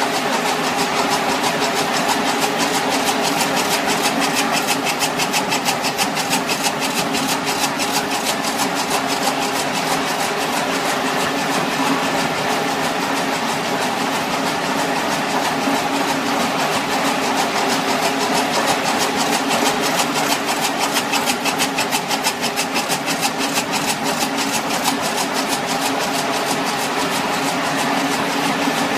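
Helical tomotherapy treatment unit running during irradiation: a steady mechanical hum from the machine with a fast, even clicking over it.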